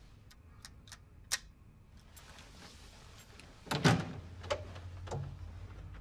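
A few small clicks, then a wooden door's handle and latch clacking as the door is pulled open, loudest about four seconds in, with a couple of lighter knocks after.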